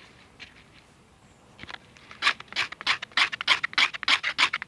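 Knife blade scraping a sheet of silver birch bark into fine dust for tinder. Faint at first, then from about two seconds in a quick run of scraping strokes, about five a second.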